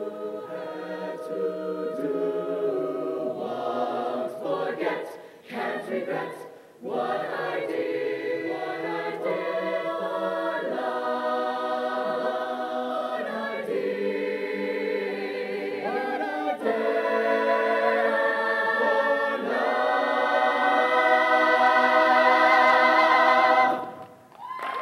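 Mixed show choir of male and female voices singing in harmony, building to a loud final held chord that cuts off about a second before the end, the close of a song.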